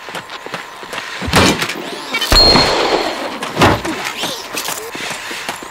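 Three heavy whacks about a second apart, the middle one the loudest with a brief metallic ring: a hockey stick striking a humanoid robot's metal body.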